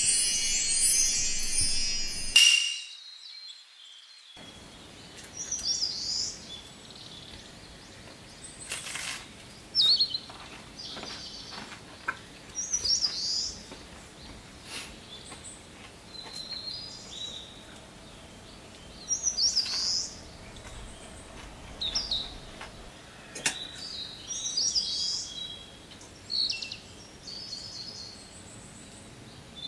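A bright, sparkling jingle that cuts off about two seconds in. After a short silence, small birds chirp and tweet in short repeated calls over a faint steady background, with a few light clicks.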